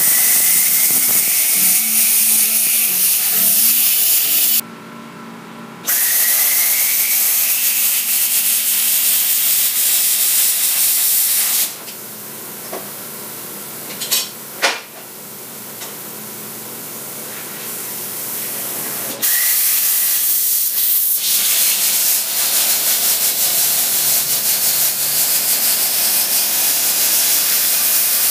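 Hand-held air plasma cutter cutting steel C-channel: a loud, steady hiss of arc and air in three long runs, each starting with a thin rising whistle. Between them are a short pause and a quieter stretch with a couple of sharp knocks.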